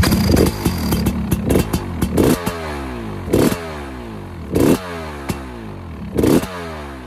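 Single-cylinder 300 cc two-stroke engine of a KTM 300 EXC TPI running at idle through an FMF exhaust, blipped about half a dozen times with the revs falling away after each blip.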